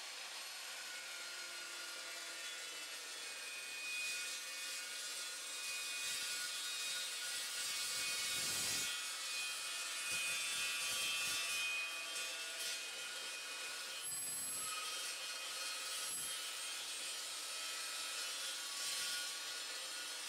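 Evolution Evosaw 355 metal-cutting chop saw with its 355 mm carbide-tipped blade sawing through 25 × 50 mm steel box section: a steady grinding hiss with high ringing tones, a little louder through the middle of the cut.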